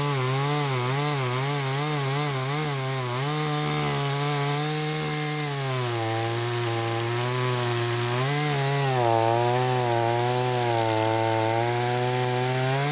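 Chainsaw running at high revs while bucking an oak log into firewood rounds. Its pitch wavers quickly at first, then drops a little about six seconds in and holds steadier.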